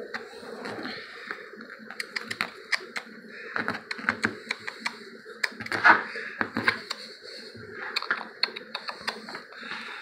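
A puppy's claws clicking and scrabbling on a hard vinyl floor in quick, irregular taps as it scampers and tussles with a rag toy, loudest about six seconds in.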